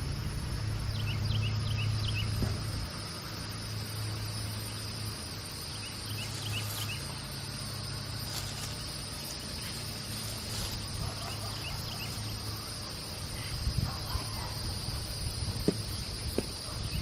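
Steady high, even drone of insects, like crickets, with a few short clusters of quick bird-like chirps and a low steady hum in the first half.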